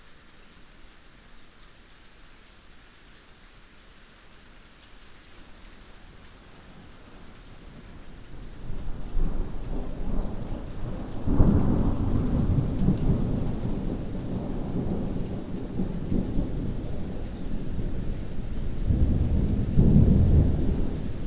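Steady rain hissing, then a long roll of thunder: a low rumble builds from about eight seconds in, breaks suddenly louder a few seconds later, keeps rolling, and swells again near the end.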